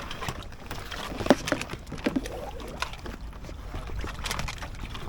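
Kayak paddle splashing in the water, with a few short knocks, the sharpest about a second in, over wind rumbling on the microphone.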